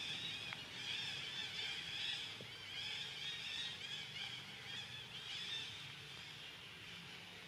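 Rapid, high-pitched animal calls, many overlapping and repeating several times a second, fading after about six seconds.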